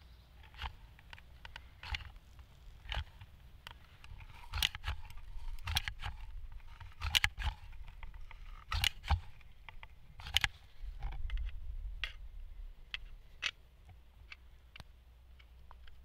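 Irregular sharp clicks and light taps of hand tools being worked at a steel anchor rod set in a hole drilled in a granite plinth stone: a level knocking against the rod and an adhesive gun being handled.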